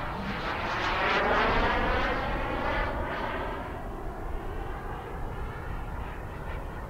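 The model gas-turbine engine of a CARF Models Mephisto RC sport jet, heard in flight. Its sound swells to its loudest about a second in, then fades steadily as the jet moves away.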